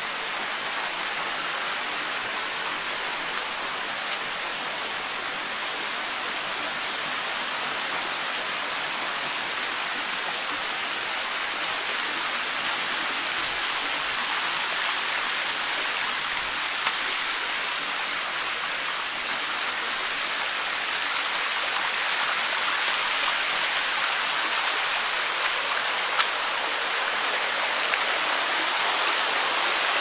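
Steady rush of water, growing gradually louder.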